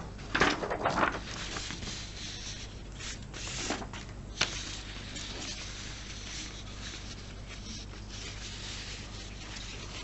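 Sheets of paper being handled and turned over, with a few brief rustles and crinkles in the first second and again about three to four seconds in, over a faint steady low hum.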